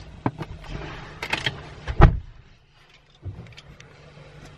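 Clicks and knocks as someone climbs into a car, with a loud heavy thump about two seconds in as the car door shuts, then a brief quiet.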